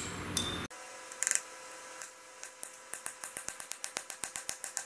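Light, sharp metal-on-metal taps of a hammer driving a roll pin back into a locker's block in a differential carrier, in a quick cluster about a second in, then in a steady run at about six taps a second with a faint ring from the metal.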